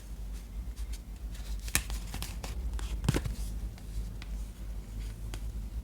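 Tarot cards being handled and laid out: light rustling with a series of sharp card snaps and clicks, the loudest about one and a half and three seconds in.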